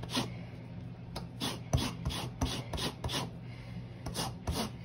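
Orange being zested on a microplane rasp grater: the peel scrapes across the fine metal teeth in quick repeated rasping strokes, about two to three a second.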